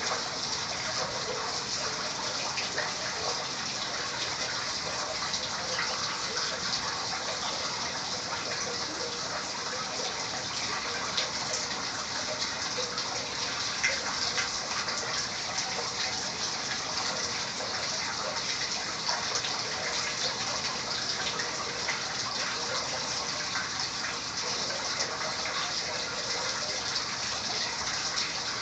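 Snowmelt running down into a storm drain beneath a street grate: a steady gushing and splashing of falling water, with scattered small drips.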